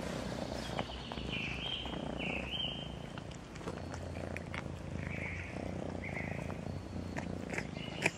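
Cats purring steadily while they eat, with small crunching clicks, and a few short high chirps over the top.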